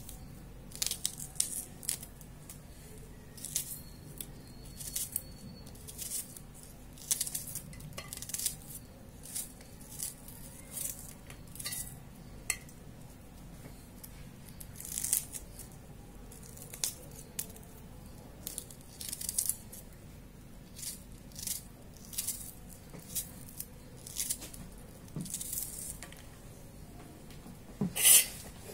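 Dry papery skins of garlic cloves or small onions crackling as they are picked and peeled off by fingernail, in short bursts every second or so, with a louder rustle near the end.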